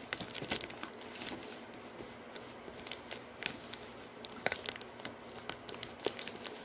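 Chex Mix Muddy Buddies snack bag crinkling as a hand handles it and reaches into it, with irregular sharp crackles.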